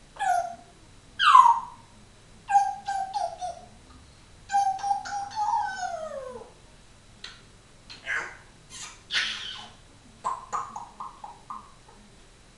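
African grey parrot calling: a string of short whistled and squawky calls, with one long whistle sliding down in pitch about five seconds in and a quick run of short notes near the end.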